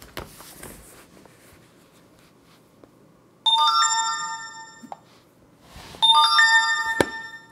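Two electronic chimes from an Android tablet, each a cluster of bell-like tones that ring and fade over about a second and a half. The first comes about three and a half seconds in, the second about six seconds in, and a sharp click falls near the end of the second chime.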